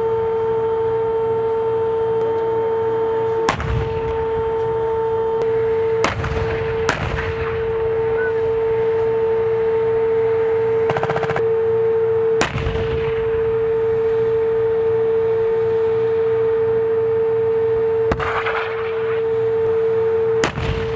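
M1 Abrams tank's gas-turbine engine running with a steady whine, while six sharp gunshots crack out over it. A short, rapid machine-gun burst comes about halfway through.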